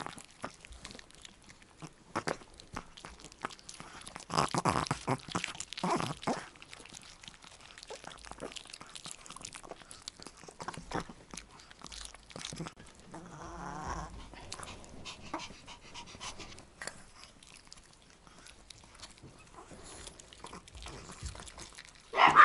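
Small dog, a chihuahua, crunching and chewing a piece of raw bell pepper with many small wet crackles, and louder dog sounds about four and six seconds in. A short, sharp, loud dog sound comes right at the end.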